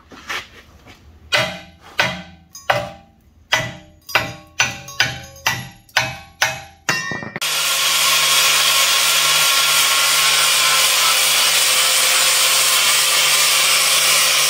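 About a dozen ringing hammer blows on steel, coming faster and faster. Then, about halfway through, an angle grinder with a flap disc starts grinding steel on the axle tube: a loud, steady grind with a low hum from the motor.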